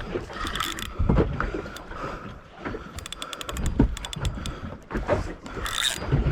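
Spinning fishing reel ticking in quick runs of clicks about three and four seconds in while a big snapper is played from a boat, among knocks and short bursts of hiss.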